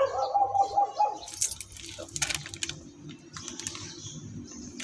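Crinkling and crackling of a plastic parts bag holding a new wheel brake cylinder as it is picked up and handled, in two spells of sharp crackles. A brief wavering cry comes at the very start.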